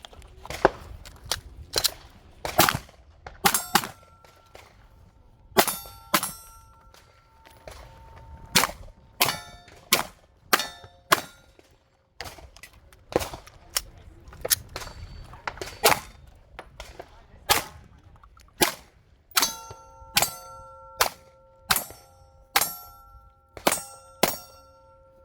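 A run of gunshots, about two dozen at uneven spacing, with steel targets clanging and ringing on after many of the hits, the ringing strongest in the last few seconds.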